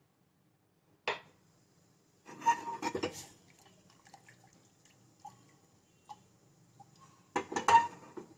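A glass tumbler set down on a stone countertop with a sharp click about a second in, then a steel saucepan of milky tea lifted off a gas burner's metal grate with a clatter and set back on it with another clatter near the end.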